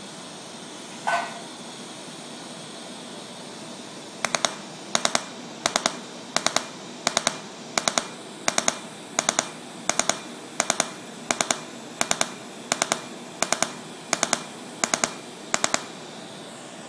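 Fotona Erbium:YAG laser pulsing on the skin of a chemical-burn scar: about four seconds in, sharp snapping clicks start, in quick groups of two or three, repeating about every 0.7 s, over a steady hiss. A short rising chirp comes about a second in.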